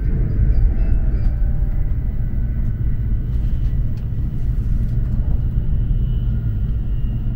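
Steady low rumble of a Tokaido Shinkansen train running, heard inside the passenger car. The last notes of the onboard announcement chime fade out in the first second.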